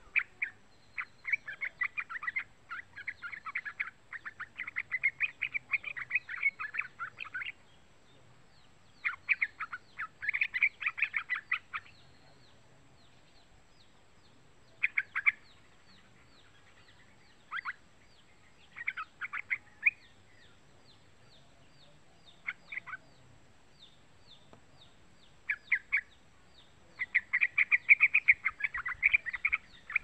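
A young yellow-vented bulbul (trucukan) calling in bursts of rapid chattering notes. A long run in the first seven seconds is followed by shorter phrases with pauses between them, and a loud run near the end.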